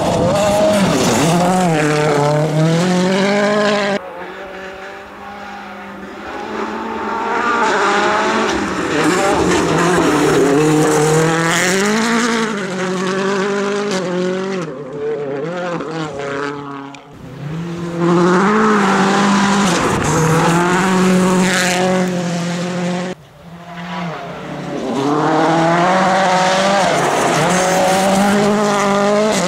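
Ford Fiesta WRC rally car's 1.6-litre turbocharged four-cylinder engine at hard throttle, revs climbing and dropping sharply again and again with quick gear changes. The sound cuts off abruptly three times between passes.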